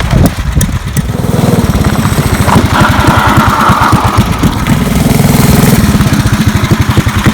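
Small pull-start engine of a ride-on vehicle running, its speed rising and falling as it is throttled. A brief higher rushing sound lies over it about three seconds in, lasting over a second.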